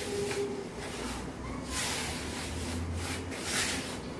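Hands rubbing and squeezing damp whole-wheat flour against a wooden bowl, working water in for kesra flatbread dough: repeated soft gritty rustling strokes at an uneven pace.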